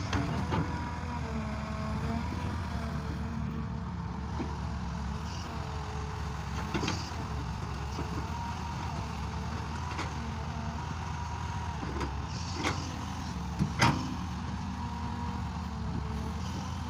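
Tractor engine running steadily under load, with a few sharp knocks and clanks.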